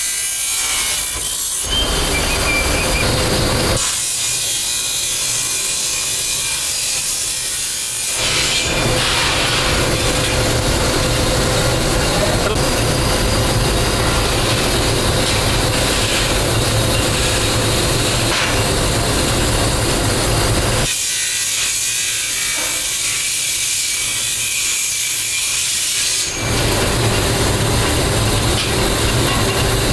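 Loud, continuous rasping of a metalworking machine cutting or working brass pipe. Twice it thins to a high hiss: about four seconds in for several seconds, and again after about twenty-one seconds.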